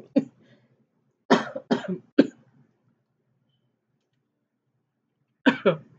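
A woman coughing in fits: one cough at the start, three quick coughs about a second in, and two more near the end.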